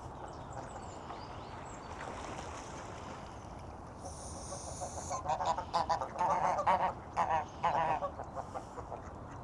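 Waterfowl calling: a rapid run of loud, repeated calls beginning about halfway through, over a steady background hiss.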